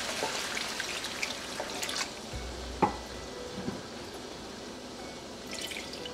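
Room-temperature water poured from a measuring cup into a hot wok of frying curry masala: a sizzling hiss for the first couple of seconds that gives way to splashing and trickling liquid. A single sharp knock about three seconds in.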